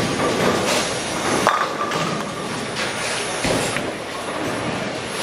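Bowling alley din: a bowling ball rolling down the lane and pins clattering, with several sharp knocks and crashes. The loudest knock comes about a second and a half in, and a deep thud about two seconds later, over a constant background of rumble and voices.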